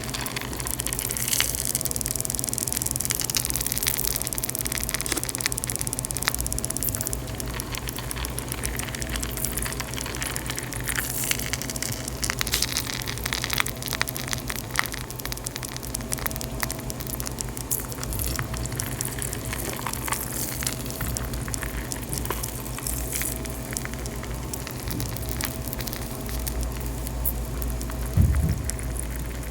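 Chalk soaking in water, fizzing and crackling with many small pops as it crumbles. For the first several seconds water rushes over it, and there is one low thump near the end.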